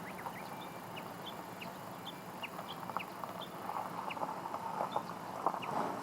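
Japanese bush warbler calling: a steady series of short, sharp downslurred notes, about one every half second to a second. In the second half, scattered clicks, the loudest about five and a half seconds in.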